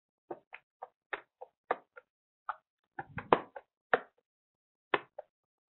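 Computer keyboard keys and mouse buttons clicking: about fifteen short, irregular clicks, the loudest a heavier knock a little past halfway.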